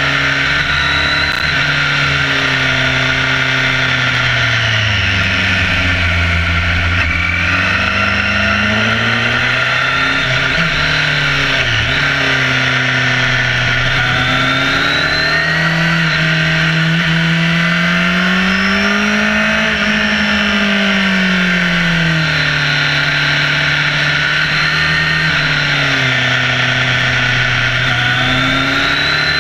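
Sport motorcycle engine running at speed, its pitch falling and rising several times as the throttle is opened and closed through the bends, under a constant rush of wind noise.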